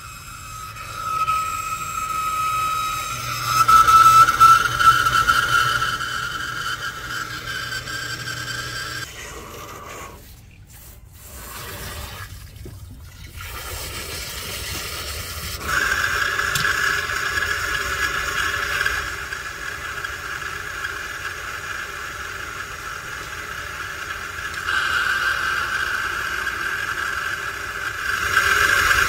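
A steady mechanical whine from a running motor or engine. It grows louder a few seconds in, drops out for a few seconds near the middle, and returns louder.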